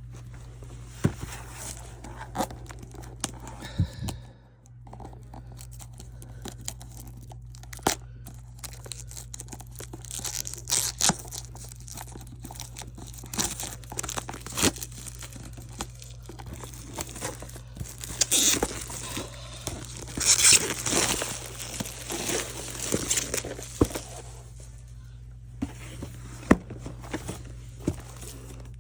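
Packaging of a diamond painting kit being handled and opened: plastic wrap and paper crinkling and tearing in several spells, with many small clicks and taps as the box and contents are moved. A steady low hum sits underneath.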